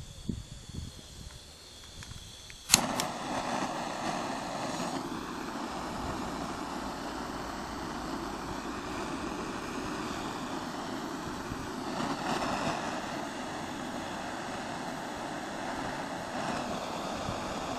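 Butane gas torch lit by its piezo auto-ignition: a sharp click about three seconds in, then the flame's steady hissing rush, swelling briefly a few times.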